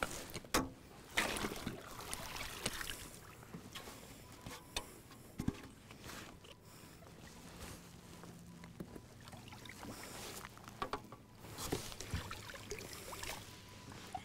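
Scattered knocks and clatter of a plastic measuring board and gear being handled in a fishing kayak, with light water sounds as a lake trout is lifted from the landing net onto the board.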